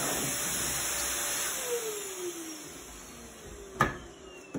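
Pet-grooming force dryer switched off and winding down: its rushing air fades while the motor's whine falls steadily in pitch. A single sharp knock comes near the end and is the loudest sound.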